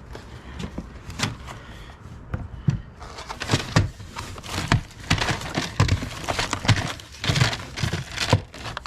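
Hands rummaging through a box of office supplies: irregular clunks, clicks and rustling as items are picked up and moved, busier from about three seconds in.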